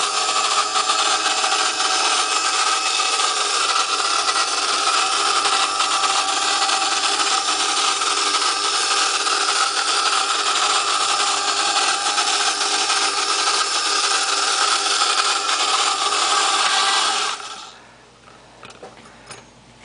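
Battery-operated 1960s Japanese tin flying saucer toy running: its electric motor and internal air fan whir steadily as it drives the saucer around and blows air to float a styrofoam ball. The whir cuts off about seventeen seconds in.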